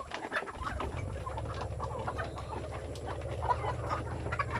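A flock of free-range chickens clucking and calling at feeding time, in many short overlapping calls. About half a second in, a steady low rumble starts beneath them and keeps going.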